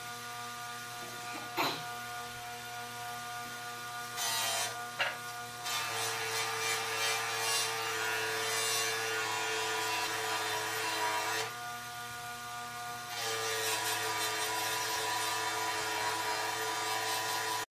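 Bench buffing machine running steadily with an abrasive wheel. A metal hand plane part is pressed against the spinning wheel in spells of grinding: a short one about four seconds in, then longer ones from about six to eleven seconds and from about thirteen seconds on.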